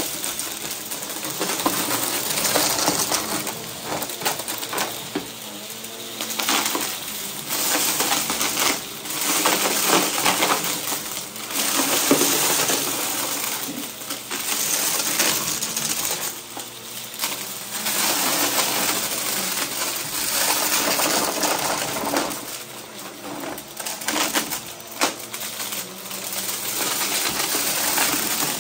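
Bagless upright vacuum cleaner running over carpet, sucking up scattered sequins, confetti and small wooden squares that clatter and rattle up through the nozzle into the dust cup. The clatter swells and fades with each push and pull of the vacuum, every couple of seconds.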